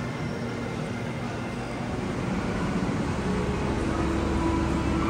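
Indoor shopping-mall ambience: a steady hum of ventilation and distant activity, getting louder about two seconds in, when a low steady drone joins it.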